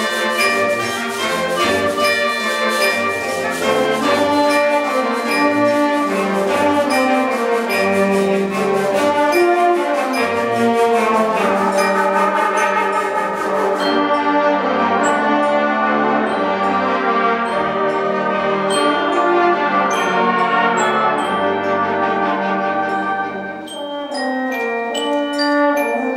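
School concert band playing a fast piece with the brass to the fore, busy percussion ticking through the first half. The music dips briefly near the end, then the full band comes back in.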